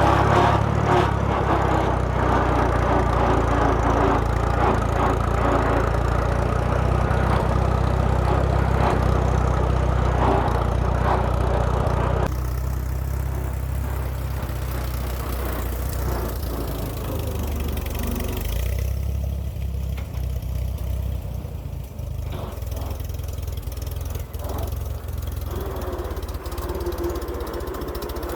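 Allis-Chalmers WD tractor's engine running steadily. About twelve seconds in the sound changes abruptly and becomes quieter.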